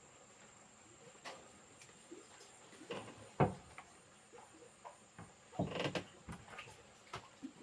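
Scattered light knocks and rustles, with the loudest knock about three and a half seconds in and a short run of knocks around six seconds.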